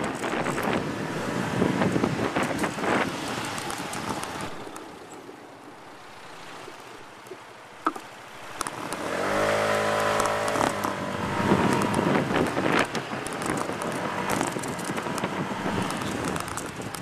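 City street traffic with wind buffeting the microphone. About halfway through, a motor vehicle's engine passes with a steady low hum lasting a couple of seconds.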